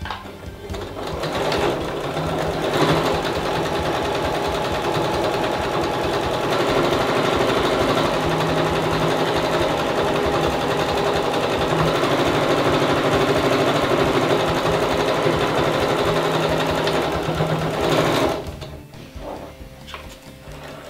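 Electric domestic sewing machine stitching a fabric shoulder strap. It speeds up over the first couple of seconds, runs steadily, and stops a few seconds before the end.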